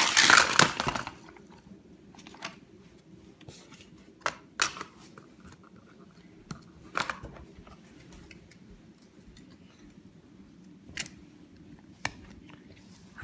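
Plastic toy race-track launcher set being worked by hand. A loud rattling burst lasts about a second at the start as the launcher lever is worked. After that come scattered sharp plastic clicks and knocks as the pieces are handled.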